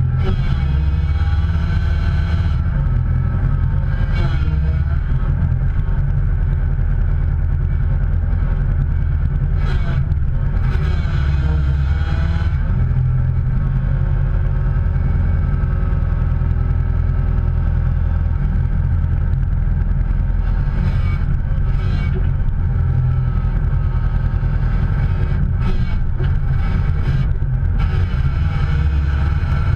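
A motor vehicle's engine running steadily, its pitch rising and falling a little now and then.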